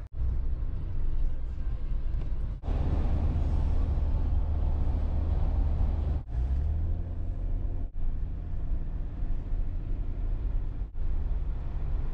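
Jeep driving on the highway, heard from inside the cabin: a steady low engine and road rumble. It comes in several short clips cut together, with abrupt breaks about 2.5, 6, 8 and 11 seconds in.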